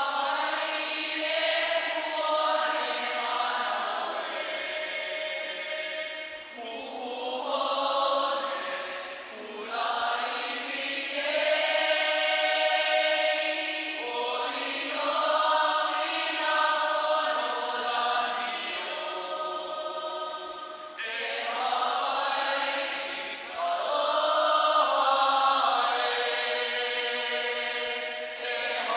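Background music of a choir singing long, held chords that change every few seconds, with no bass.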